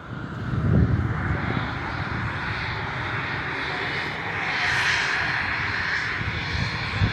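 Aircraft engine noise, a steady whooshing run that swells and eases slightly over a few seconds, with wind gusting on the microphone.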